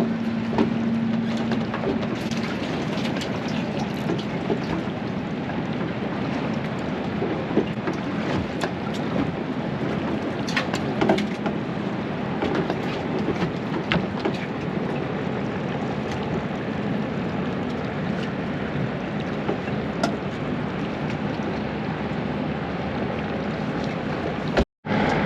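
Steady rushing noise of water and wind aboard a boat, under a faint steady low hum, with scattered knocks and clicks. The sound drops out briefly near the end.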